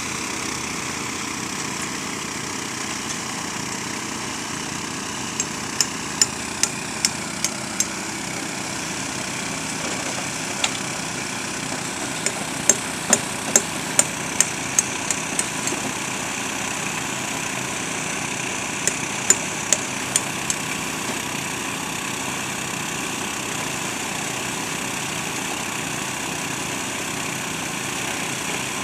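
Small engine of a gold-washing machine running steadily. Three runs of sharp taps, a few a second, sound over it.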